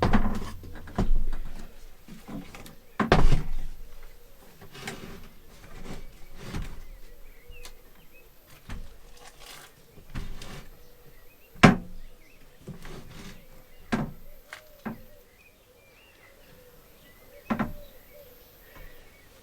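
Irregular knocks and clunks of a wooden cabinet door and its parts being handled and fitted, about a dozen separate strikes, the loudest about three seconds in and near the middle.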